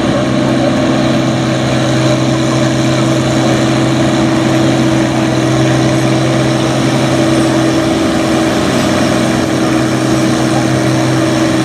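Farm pulling tractor's engine running at a steady speed, one constant drone with no revving up or down.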